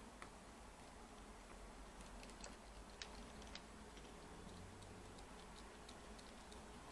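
Faint, scattered small clicks and ticks of a precision screwdriver turning tiny screws into a laptop's plastic underside, over a low room hum.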